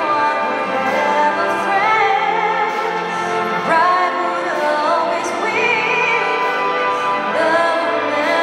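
A woman singing a slow ballad with a symphony orchestra accompanying her: her held, wavering notes sit over sustained orchestral chords.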